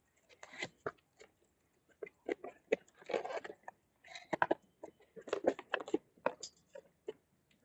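Cardboard box and plastic packing crinkling and rustling in irregular short bursts as a battery charger and its cables are lifted out and handled.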